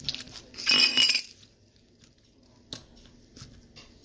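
A brief clattering clink of small hard objects knocked together, about half a second long, roughly a second in, followed by a few faint taps.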